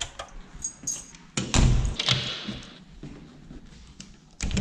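Small clicks of a wall light switch being pressed, then one loud thud about a second and a half in, and a door's lever handle and latch being worked near the end.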